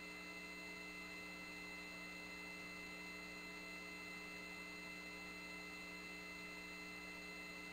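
Faint, steady electrical hum with several steady high tones above it, the open line of a launch-range countdown communications loop between callouts.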